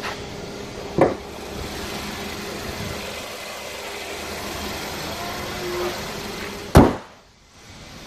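Kia K3's engine idling steadily with the hood open. There is a clunk about a second in as the hood is raised, and a loud slam near the end as the hood is shut, after which the engine sounds much quieter.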